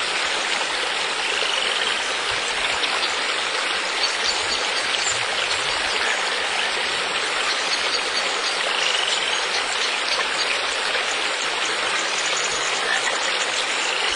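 Steady rushing of running water, like a stream, with a few faint short rising whistles over it.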